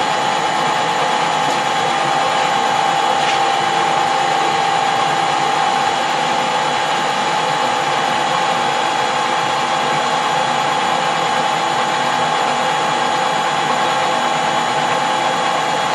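Metal-turning lathe running with a steady whine from its motor and gearing, unchanged throughout.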